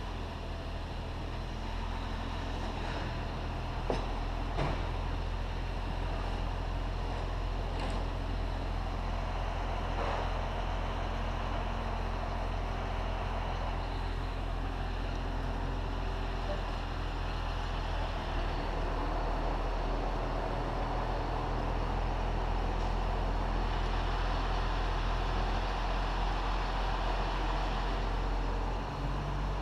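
Crane truck's engine running steadily with a low hum, with a couple of short knocks about four seconds in.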